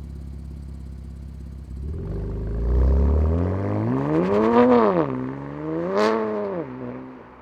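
BMW M2 Competition's twin-turbo straight-six idling, then revved twice through its sports exhaust. The pitch climbs and falls with each rev, with a sharp crack at the top of the second, before it drops back toward idle.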